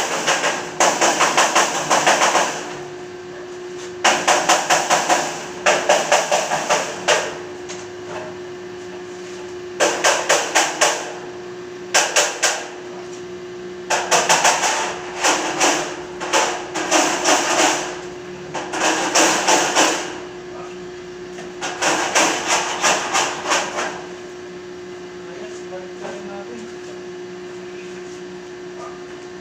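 A hammer striking steel in about ten bursts of rapid blows, each burst lasting about a second, stopping near the end, over a steady hum.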